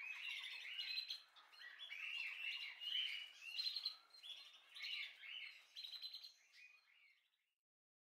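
Faint chorus of small birds chirping and twittering, many short overlapping calls, fading out near the end.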